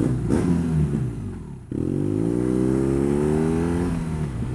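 Motorcycle engine dropping in pitch as it slows, then about a second and a half in picking up sharply and rising steadily in pitch as the bike accelerates.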